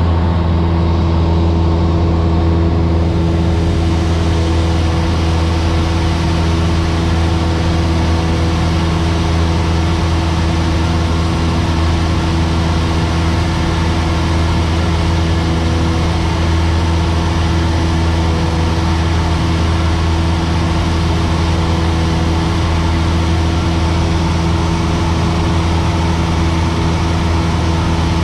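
Single-engine light aeroplane's piston engine and propeller running steadily in flight, heard inside the cockpit as a loud, even drone with a low hum.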